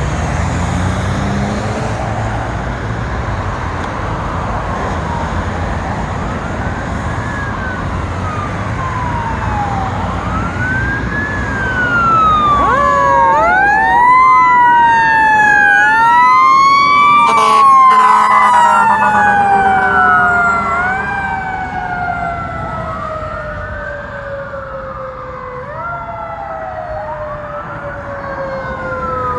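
Fire truck sirens wailing as it responds, rising and falling in pitch over a low engine rumble. Several sirens overlap and are loudest about halfway through, with a brief sharp blast among them, then they ease off.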